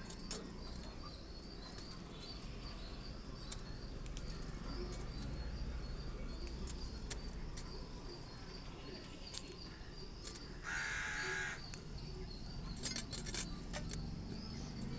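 A crow cawing once, a harsh call of about a second, over steady outdoor background noise with faint ticks. A quick cluster of sharp clicks follows a couple of seconds later.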